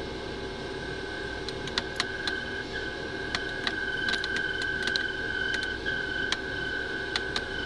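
CNC lathe parting off a spinning workpiece under flood coolant: a steady machine hum with a high whine and many scattered sharp ticks.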